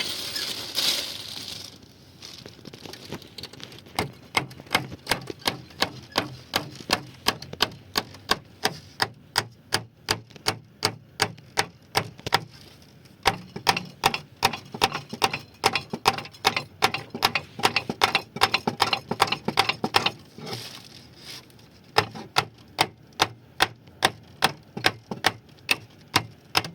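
Rapid, even tapping, about three to four sharp knocks a second, in two long runs with a short break about twenty seconds in, typical of a small hammer tapping on wood.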